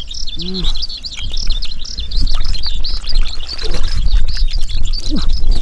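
Many small birds chirping continuously in quick, short, high calls, over a steady low rumble and scattered knocks.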